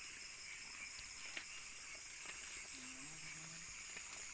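Steady chorus of night insects, shrill and continuous in several high-pitched bands, with a few faint clicks and a brief faint murmured voice about three seconds in.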